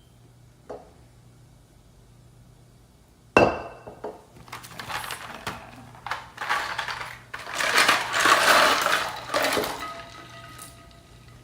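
Kitchenware being handled: a sharp knock about three seconds in, then several seconds of irregular clattering and rattling, fading with a short ringing tone near the end.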